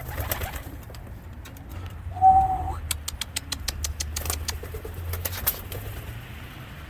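Homing pigeons at the loft: cooing over a low rumble, a short high steady squeak about two seconds in, then a quick run of sharp clicks and flaps.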